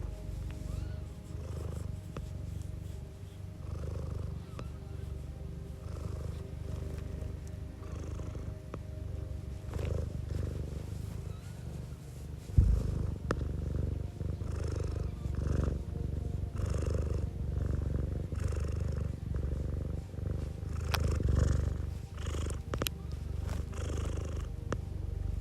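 Domestic cat purring close up: a steady low rumble that swells and fades every second or two. A single soft thump about halfway through, and a few faint clicks later.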